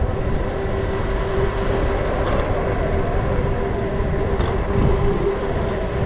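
Riding noise from a Super73 S2 electric motorbike under way: wind buffeting the microphone and tyre roar, with a steady whine from the electric motor running through it.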